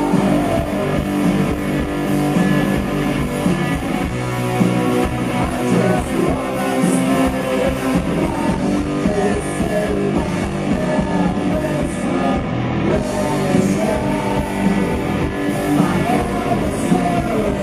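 Rock band playing live: two electric guitars, electric bass and a drum kit, with a man singing lead vocals into a microphone.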